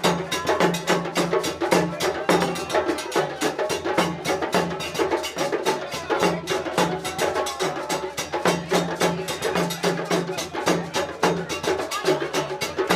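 Music with a fast, steady percussion beat and a repeating bass line.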